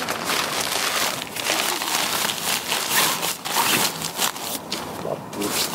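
Fabric rustling and crinkling as stuff sacks are pushed and packed down into a hiking backpack.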